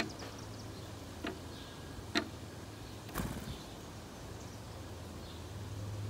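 Gray catbird's beak striking a plastic jelly lid as it pecks: three sharp clicks, the loudest right at the start and the others about a second apart, then a softer, duller knock about three seconds in. Faint bird chirps and a low steady hum run underneath.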